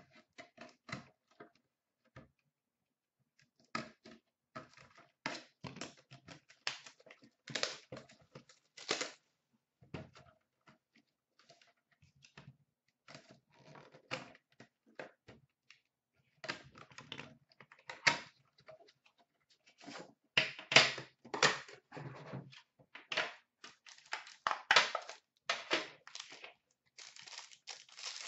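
Hands opening an Upper Deck Premier hockey card box: irregular clicks, taps and scrapes of cardboard and wrapping, turning into steady crinkling of the card pack's wrapper near the end.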